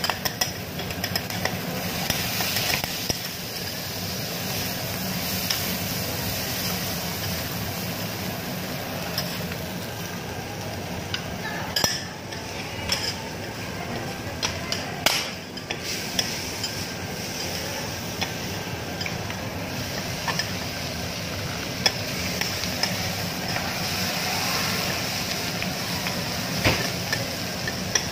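Food sizzling on a hot teppanyaki griddle, with metal spatulas scraping and clicking against the steel plate every so often.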